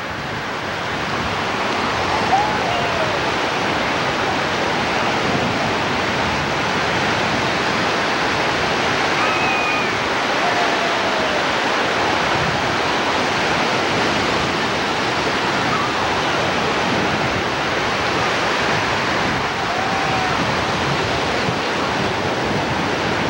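Ocean surf breaking and washing through the shallows: a steady, unbroken rush of waves.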